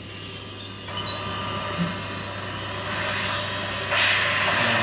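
Built-in sound effect of the Hot Wheels 1:18 Back to the Future time machine model: a hissing, engine-like run-up that grows louder in steps and jumps up sharply about four seconds in, the toy's time-travel effect.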